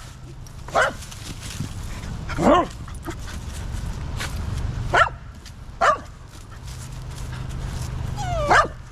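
A dog barking in five short, high-pitched yips spread a second or more apart, some of them dropping in pitch.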